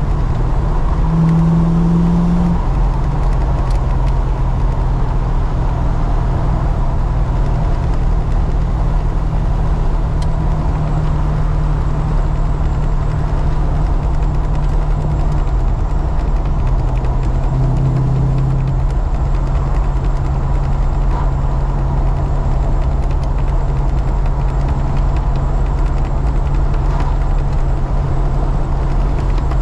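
Holden Commodore driving at a steady cruise: a constant engine hum under road and wind noise from an engine being run in. The engine note dips briefly about halfway through, then holds steady again.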